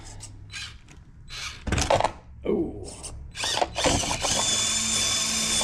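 A 1/18-scale RC crawler's small electric motor and geared drivetrain whine in short throttle bursts as it crawls over rock. From about four seconds in, with the truck tipped onto its side, the whine turns steady and high-pitched.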